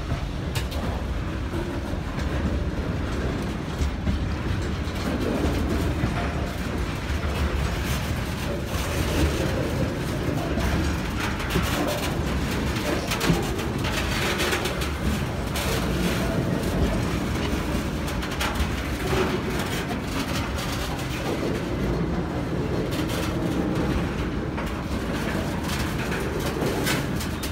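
Freight wagons, covered hoppers then tank cars, rolling past close by. Steel wheels rumble steadily on the rails, with repeated clicks and clatter of wheels over the rail joints.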